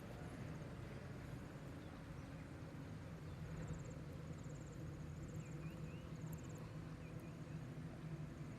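Outdoor riverside ambience: an insect's short high buzzing trills repeating every second or so, a few quick bird chirps around the middle, over a steady low hum.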